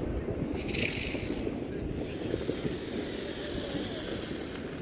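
Fireworks display: a firework hisses about a second in, then a thin high hiss carries on over a steady low rumble, with no bangs.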